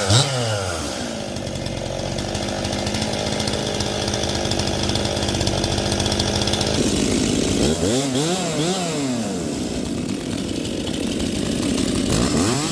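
49cc Stihl two-stroke chainsaw idling steadily, then revved up and back down a few times from about seven seconds in, with more revs near the end.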